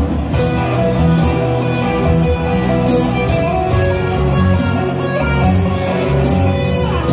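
Live rock band playing with amplified electric guitars, bass guitar, keyboards and a drum kit, the cymbals keeping a steady beat about twice a second.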